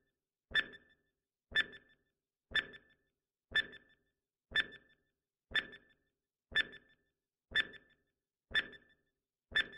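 Countdown timer sound effect ticking: one sharp click with a short ringing tone each second, ten ticks in all.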